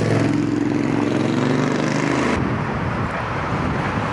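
Motor vehicle engine running with a steady, slightly falling hum, cut off abruptly about two and a half seconds in by a rougher rumble of traffic and road noise.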